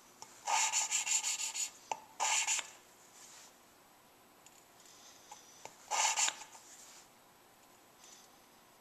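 A new valve being hand-lapped into its seat in a Suzuki G16A 16-valve cylinder head: the suction-cup lapping stick is twisted back and forth with grinding compound, giving three bursts of gritty grinding, the first about a second long with a fast back-and-forth scratch. The grinding at the start of each turn is the sign that valve and seat are not yet fully lapped in.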